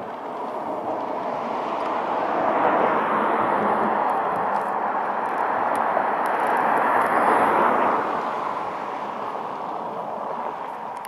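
A passing vehicle's rushing noise. It swells over the first few seconds, stays loud for several seconds, then fades.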